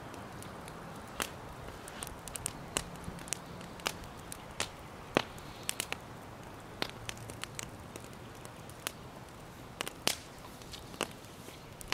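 Wood campfire crackling: irregular sharp pops and snaps, a few louder ones standing out, over a soft steady background.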